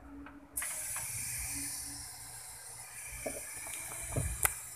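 Amplifier with a stereo tone-control preamp board playing with no signal: a steady hiss that comes on abruptly about half a second in, over a faint low hum. This hiss and hum is the noise fault being chased in the preamp board. A couple of handling knocks near the end.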